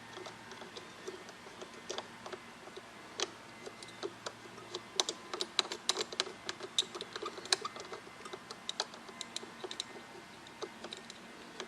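Irregular light clicks and taps of small hand tools and parts handled on a metal radio chassis, coming thick and fast for a few seconds in the middle.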